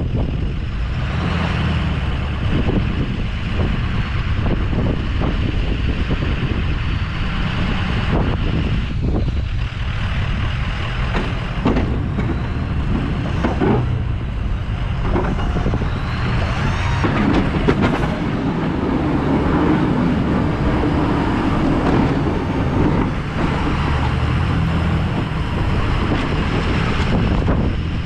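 A Ford F-250's 6.0 Powerstroke V8 turbo-diesel engine runs steadily under load as the truck drives and pushes snow with a Boss stainless steel V-plow.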